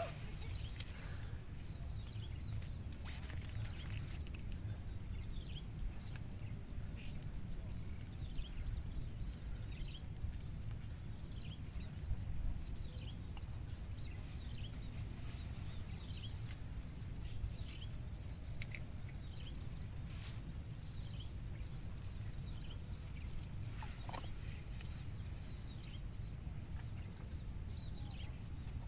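Steady high-pitched drone of insects over a low rumble, with scattered short high chirps throughout.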